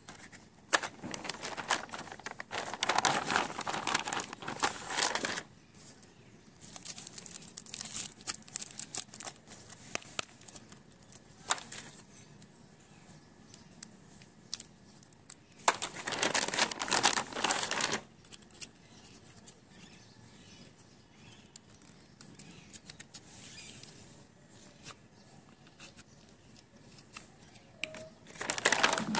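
Hands handling stationery packaging, a cardboard crayon box and a plastic kit pouch, which rustle and crinkle in several bursts a few seconds long, with small clicks and taps between them.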